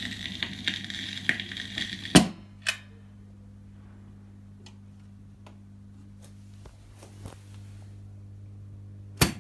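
Estonia-4 valve radiogram playing a vinyl record with surface crackle, cut off by a loud click about two seconds in as the tonearm is lifted. After that a steady low hum from the amplifier with faint ticks, and near the end a sharp click of a piano-key band switch being pressed.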